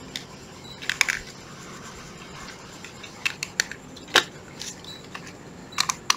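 Scattered sharp plastic clicks and taps from a used 12 V cordless drill being handled and its trigger pressed: a few spread apart, then a quick cluster near the end. The motor does not run, because dirt has jammed the switch.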